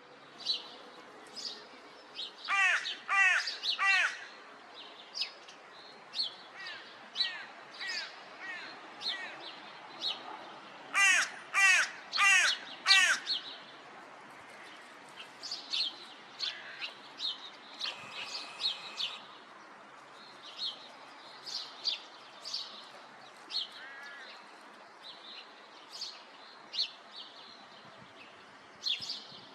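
A crow cawing loudly in two series of about four harsh caws, eight seconds apart, with a few fainter caws later. The owner takes the calling as the crow summoning other crows to food. Small birds chirp briefly throughout.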